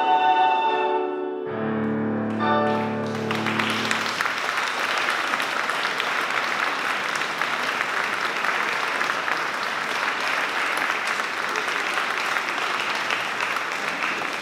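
A choir cuts off its final held chord, piano chords close the piece, and audience applause starts about three seconds in and carries on steadily.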